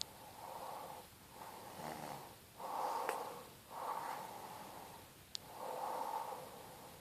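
A sleeping woman snoring lightly, with about five slow, noisy breaths and a faint rattle on one of them near two seconds in. Brief high whistles come at about three and five seconds in.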